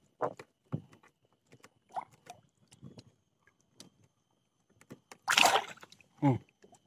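Scattered knocks, clicks and scraping as hands handle a wire-mesh fish keep net on a log raft at the waterline, with a loud splash of water a little after five seconds in.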